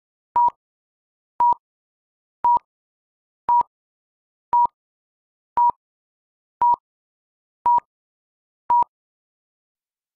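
Film-leader countdown beeps: nine short beeps at one steady pitch, about one a second, one for each number counted down.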